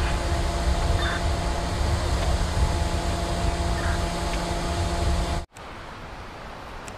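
A truck's engine runs at a steady speed with a low rumble as the truck moves slowly through flood water. About five and a half seconds in, the sound cuts off abruptly and gives way to a quieter, steady hiss.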